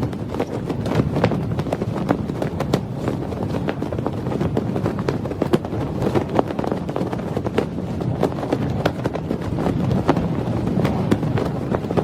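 A sound effect of many irregular sharp knocks and crackles over a steady low rumble, a few strong hits a second.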